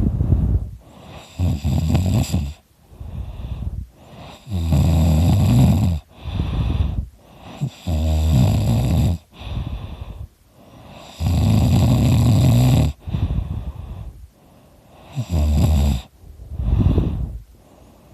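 A man snoring very loudly in his sleep: a run of about six long, rough snores, each a second or two long with a rapid rattling flutter, coming every few seconds with short quieter breaths between.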